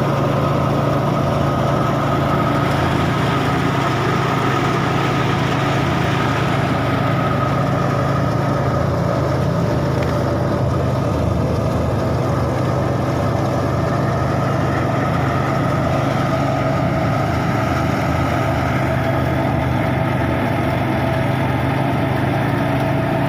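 Tractor-powered wheat thresher running steadily while wheat sheaves are fed in: the Massey Ferguson 260's diesel engine drones under load, with a constant higher whine from the spinning threshing drum.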